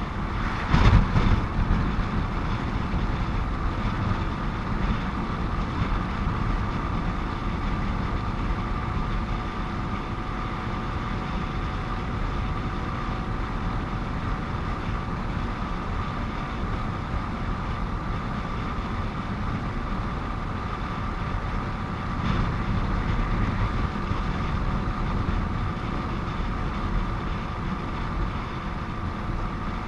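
Motorcycle riding along a highway: steady engine and road noise with a constant whine, a brief louder burst about a second in and a slight swell a little past twenty seconds, as traffic is passed.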